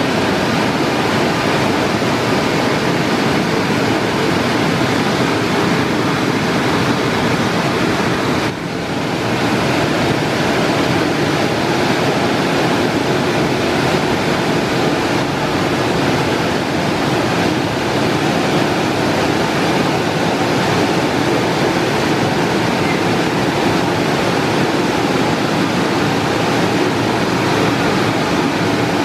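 Istobal M'Start rollover car wash gantry at work: its spinning brushes swish over the car's body amid water spray, a steady, loud rushing noise. The noise drops briefly about eight and a half seconds in.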